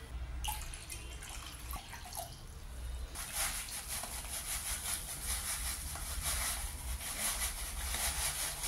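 Water poured from a steel tumbler splashing into a non-stick pan, then from about three seconds in a steady hiss as a packet of instant moong dal payasam mix is poured out of its plastic pouch into the water.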